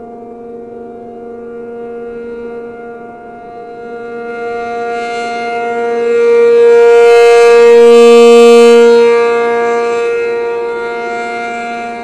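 ACA P-50 rotating outdoor warning siren sounding its steady alert, a held two-note chord. It swells to its loudest from about six to nine seconds in as the turning horn sweeps round toward the listener, then fades again.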